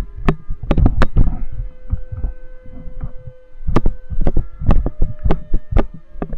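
Irregular thumps and knocks of footsteps and handling on a walking, handheld camera on a dirt track, about two to three a second, with a faint steady hum underneath.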